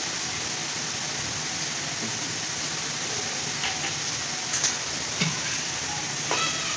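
Chicken and shredded vegetables sizzling steadily as they stir-fry in a large aluminium wok, with a few short clacks of a wooden spoon against the pan in the second half.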